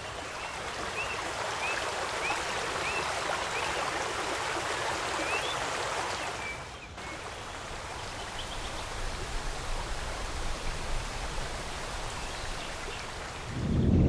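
Steady rush of flowing water, with a bird repeating short rising chirps through the first half. There is a brief break about seven seconds in, and near the end a low rumble swells in.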